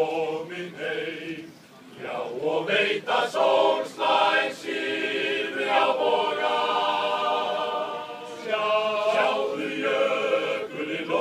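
Men's choir singing a cappella: short clipped phrases with a brief break about two seconds in, then full held chords.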